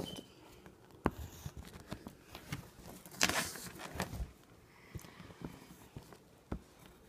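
Colored pencil scratching on a sheet of lined paper, with a few soft knocks and rustles scattered through.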